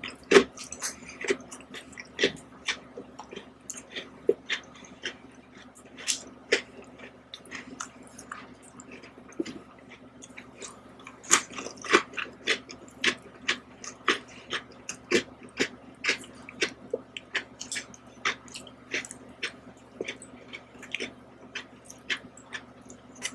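Close-miked eating of Oreo cookies and ice cream: chewing and mouth sounds with many short, sharp clicks coming irregularly.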